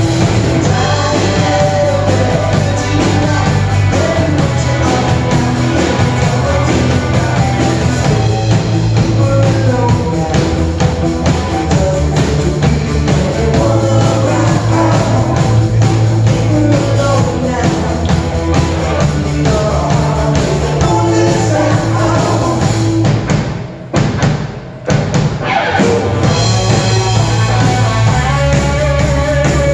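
Live rock band playing: a woman singing lead over electric guitars and a drum kit. About three quarters of the way through, the band stops short twice for a moment before coming back in.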